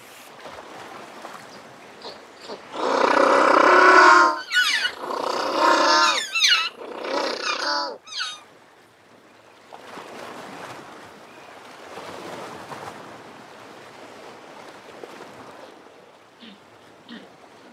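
African penguin (jackass penguin) giving its donkey-like bray. About three seconds in comes one long, harsh drawn-out note, followed by a run of shorter wavering honks that rise and fall, the whole call lasting about five seconds.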